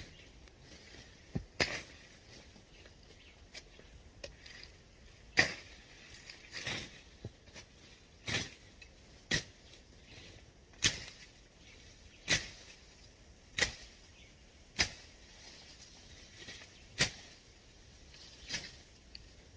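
Repeated swishing chops of a machete cutting through brush: about a dozen sharp strikes at an uneven pace, one every one to two seconds.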